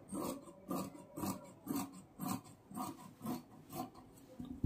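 Tailor's shears cutting through velvet suit fabric: a steady run of about nine snips, roughly two a second.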